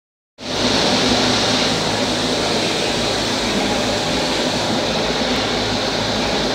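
Paper angle board (edge protector) production line running: a steady, loud mechanical whir and hum with a low electric drone, cutting in about half a second in.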